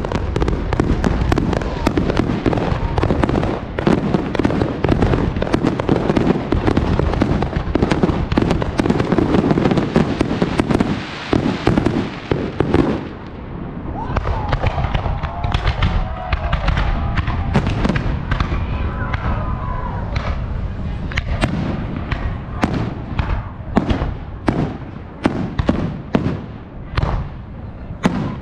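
Aerial fireworks going off: a dense barrage of bangs and crackling through the first half, then after a short lull a quick run of separate sharp bangs near the end.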